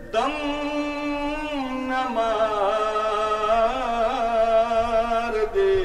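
A lone man singing a Punjabi naat (devotional poem in praise of the Prophet), with no instruments. He holds long notes with wavering ornaments and breaks briefly near the end before starting a new note.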